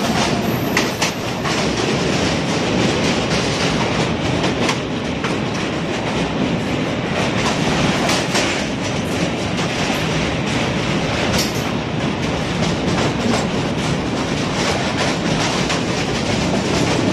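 Indian Railways express passenger coaches rushing past at speed on the adjacent track of a steel truss bridge, heard close up: a steady, loud rumble of wheels on rail with rapid clickety-clack from the wheels striking rail joints.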